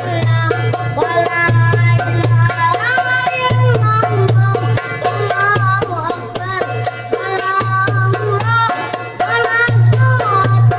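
A boy singing sholawat, Arabic devotional verses in praise of the Prophet, in a winding, ornamented melody. He is accompanied by a darbuka goblet drum struck in a quick, continuous rhythm.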